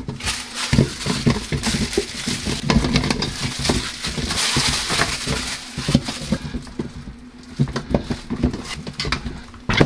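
Plastic packaging crinkling as it is pulled off new kitchen utensils, then the wooden-handled silicone utensils clicking and knocking against each other as they are set into their holder over the last few seconds.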